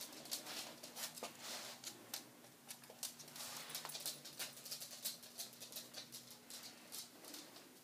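Quick, irregular light clicks and scratching over a faint steady hum.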